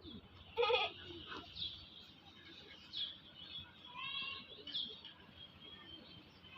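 Animal calls: a loud, wavering call about half a second in and a weaker one around four seconds, with short high bird chirps scattered between them.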